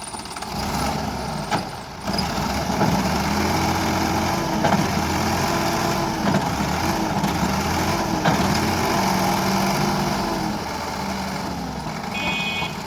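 Heavy diesel engine of earthmoving equipment working, its pitch rising and falling as it revs up and down under load. A few sharp knocks fall through it, and a short high tone sounds near the end.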